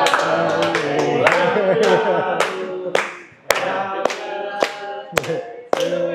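A group of voices singing a birthday song unaccompanied, with hands clapping along in time, about two claps a second.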